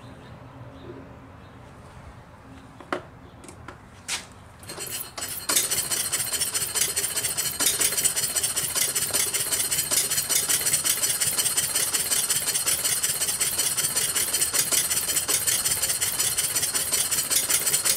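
Model Mery Explosive engine, a double-acting coal-gas engine, being started: two sharp clicks about three and four seconds in, then it catches about five seconds in. It then runs steadily and pretty slow, with a rhythmic firing clatter, firing on both the front and rear ends of the cylinder.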